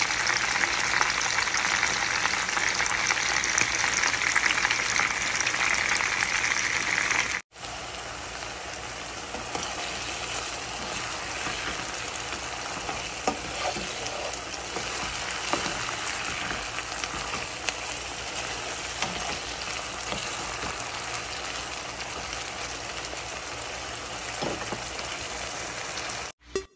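Whiting fillets frying in hot oil with a loud, dense sizzle. About seven seconds in it cuts to a quieter sizzle of shrimp sauce with onions and peppers sautéing in a pan, a spatula stirring and clicking against the pan now and then.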